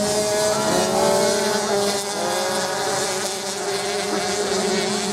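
Several small motocross bikes racing past at a distance, their engines buzzing, the overlapping notes rising and falling as the riders rev and change gear.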